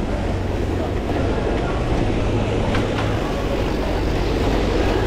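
Pond water pump running with a steady hum, its outlet pipe gushing water into the pond.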